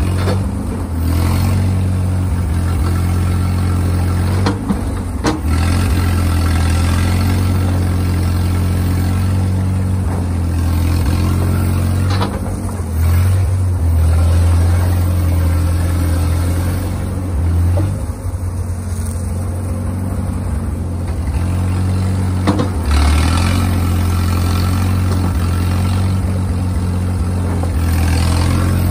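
Schield Bantam T35 cable excavator's LeRoi gasoline engine running steadily, its note shifting several times as the machine digs and swings, with a few sharp metallic knocks.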